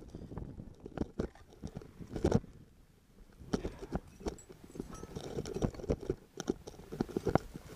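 Close-up crunching and knocking of a climber moving over snow-covered rock: gloved hands and an ice axe digging into snow and scraping against the granite, in irregular strokes. It goes quieter for a moment about three seconds in, then the crunching and tapping come thicker.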